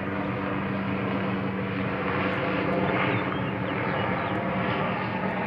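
Small helicopter flying overhead, a steady engine and rotor drone that swells slightly a couple of seconds in.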